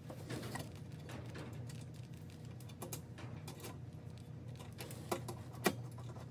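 Hand screwdriver driving small screws into a bracket on an aluminium A/C condenser: light scattered metal clicks and short scrapes, with two sharper clicks near the end. A steady low hum runs underneath.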